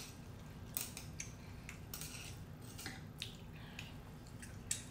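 Metal chopsticks and a spoon clicking lightly against a ceramic bowl as noodles are stirred and lifted, about nine scattered clicks.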